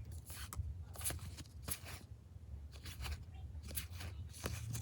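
Glossy trading cards being handled and slid off a stack one by one: a string of short rustles and clicks, irregularly spaced, over a low steady hum.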